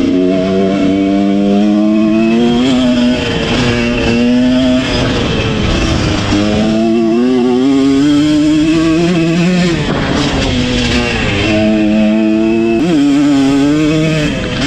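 Koshine dirt bike engine revving under way, its pitch climbing and then dropping sharply at each gear change, several times over.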